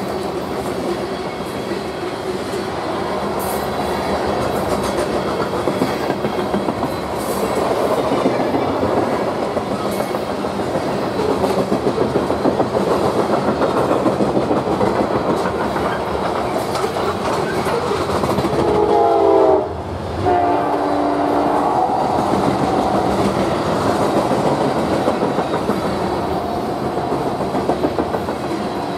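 Loaded coal gondolas of a freight train rolling past, with a steady clickety-clack of wheels over the rail joints. About two-thirds of the way in, a train horn sounds a chord for a couple of seconds, broken by a brief dropout.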